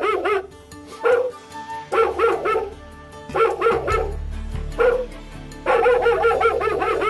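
HomeSafe barking dog alarm (Model 639SR) playing a recorded large dog's barking through its front speaker, in bursts of rapid barks with short pauses between them. This is the alarm's escalated, more vicious bark, given when movement continues after the warning bark.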